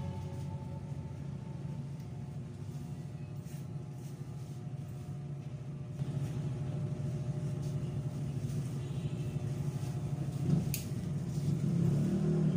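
Electric hair clippers buzzing steadily while cutting hair, with a single sharp click near the end.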